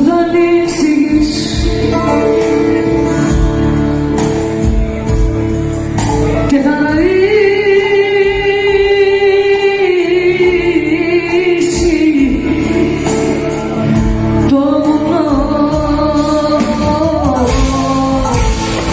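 Live concert music: a singer holding long, wavering notes over a band with a steady drum beat.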